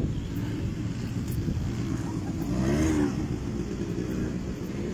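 Quad bike (ATV) engine running as it rides across the sand, revving up and back down about halfway through.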